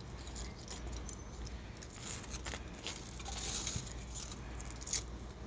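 Foil wrapper of a melty chocolate egg crinkling with scattered soft clicks and crackles as it is unwrapped and pulled apart by hand.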